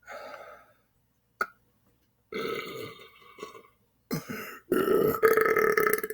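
A man belching deliberately several times: a short belch at the start, a longer one about two seconds in, and a long, drawn-out belch that is the loudest, over the last second and a half. A sharp click falls in between, about a second and a half in.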